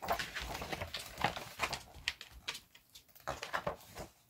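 Pages of a picture book being opened and turned: an irregular run of paper rustles and small taps, quieter near the end.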